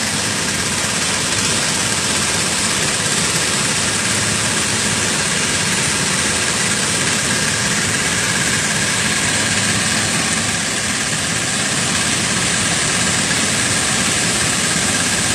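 Small boat engine running steadily while the boat moves, over a continuous even rushing noise.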